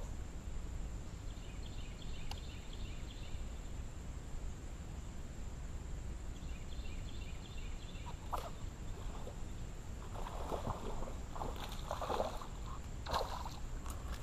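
Hooked bass splashing at the water's surface in several short bursts as it is reeled to the boat and lifted aboard, over a steady low rumble.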